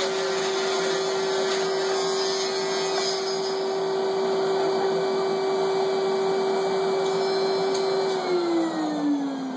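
Oscillating cast saw with a dust-vacuum attachment running with a steady whine. About eight seconds in it is switched off and its pitch falls as the motor winds down.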